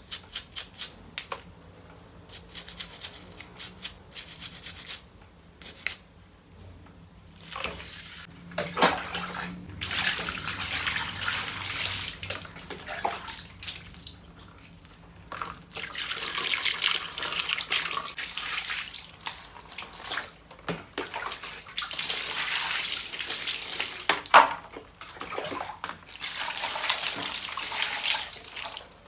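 Water running and splashing in several long spells, as dirty ceiling-fan parts are washed, with short knocks and clicks in the first few seconds.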